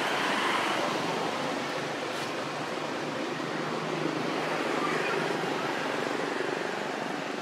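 Steady rushing outdoor background noise, with a faint short falling squeak about five seconds in.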